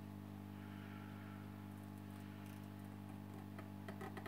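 Steady low electrical hum, with a few small clicks near the end.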